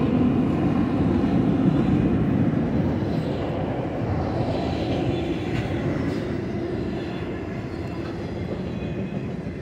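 Autorack freight cars rolling past on the rails: a steady rumble and rattle of wheels and car bodies that slowly fades as the tail end of the train goes by.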